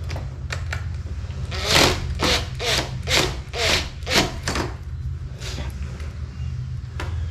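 Rasping, rubbing strokes from hand work on a door lockset as it is loosened and adjusted: a run of about eight strokes, two to three a second, starting under two seconds in and stopping after about three seconds, over a steady low hum.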